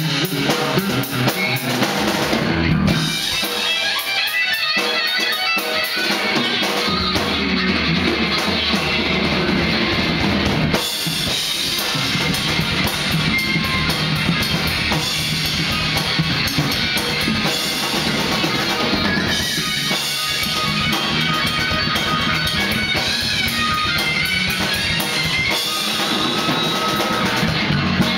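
Live band playing: drum kit, bass guitar and guitar, continuous and steady in loudness.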